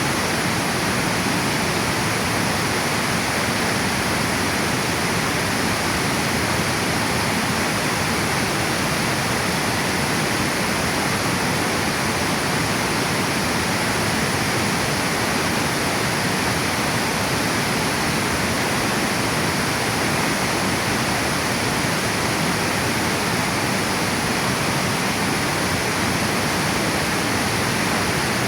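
Water pouring steadily over a river dam, a constant even rush.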